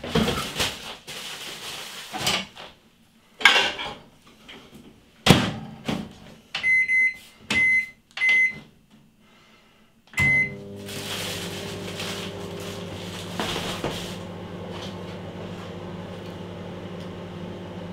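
Microwave oven being loaded and started: knocks and clatter as the dish goes in, three short keypad beeps, then a fourth beep about ten seconds in, after which the oven runs with a steady hum.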